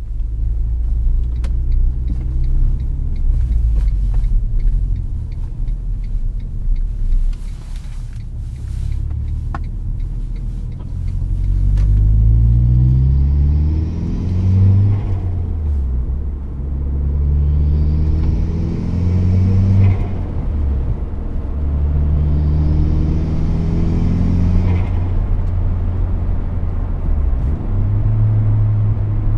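Turbocharged four-cylinder engine of a Smart Forfour Brabus with an open cold-air intake, heard from inside the cabin. It runs steadily at first, then pulls hard three times with the engine note rising under a loud intake and turbo hiss. Each pull ends in a sharp drop in pitch at the gear change, with a short hiss from the recirculating blow-off valve as the throttle closes.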